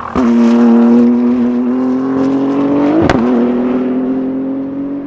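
BMW M4 GT3's 3.0-litre twin-turbo inline-six (P58) at high revs under acceleration, its note climbing slowly. About three seconds in there is a sharp crack with a brief dip in pitch, typical of a gearshift, and the sound then fades as the car pulls away.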